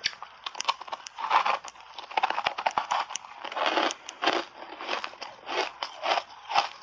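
Ice chunks coated in matcha powder being bitten and chewed close up: a run of irregular, sharp crunches as the ice cracks between the teeth.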